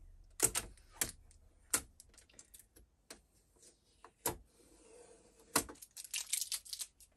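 Sharp clicks and snaps with a soft rustle in the middle, and a quick run of clicks near the end, as blue shipping tape is peeled off a new Juki MO-2500 overlocker and its plastic parts are handled.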